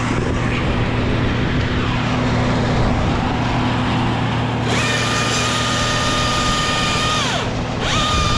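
Battery-powered top-handle chainsaw, the Husqvarna T540i, starting up abruptly about halfway through and running at full speed with a steady high whine, then released so the whine falls in pitch and stops, and triggered again just before the end. A steady low hum runs underneath throughout.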